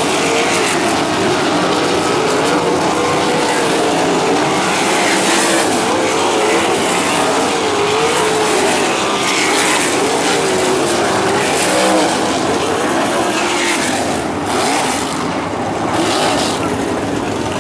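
Open-wheel dirt-track race car engine running, its pitch wavering up and down as the throttle is worked.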